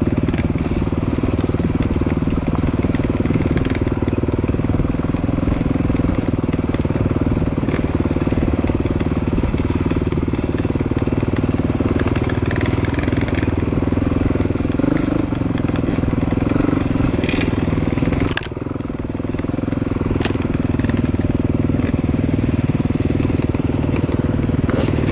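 Dirt bike engine running under throttle, heard from the rider's own bike, with a brief drop about three-quarters of the way through as the throttle is closed, then picking up again.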